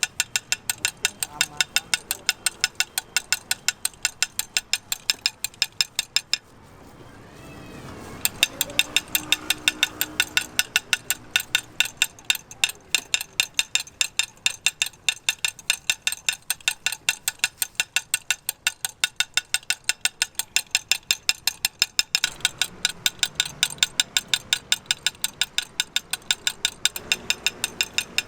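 Sharp mechanical clicking in a steady rhythm, about three clicks a second. It breaks off about six seconds in and starts again some two seconds later.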